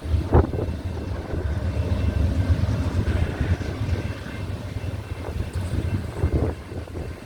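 Union Pacific freight train rumbling past, with gusts of wind buffeting the microphone about half a second in and again near the end.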